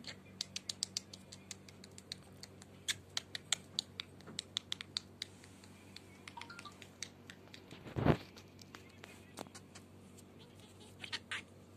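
A rapid run of light, sharp clicks and ticks, thickest in the first few seconds, with one louder thump about eight seconds in.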